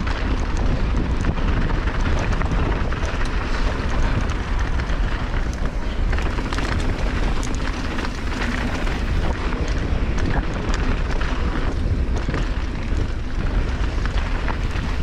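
Wind buffeting the microphone as a steady, heavy rumble, over a dense run of small clicks and rattles.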